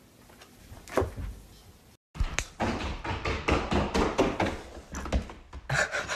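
A single thump about a second in; then, after a brief cut, a young goat's hooves clattering and tapping in quick irregular strokes on a hardwood floor.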